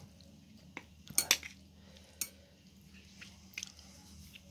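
Stainless steel chopsticks clicking against a ceramic bowl a few times while stirring saucy instant noodles. The two loudest clicks come a little over a second in.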